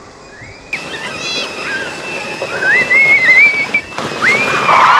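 Two young girls screaming with excitement as they ride inflatable tubes down a dry tubing slope: a short high scream about a second in, then two long wavering ones.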